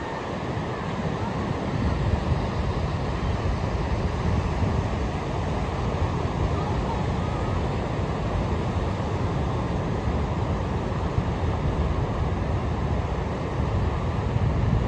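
Ocean surf washing steadily onto a beach, with wind buffeting the microphone in gusts.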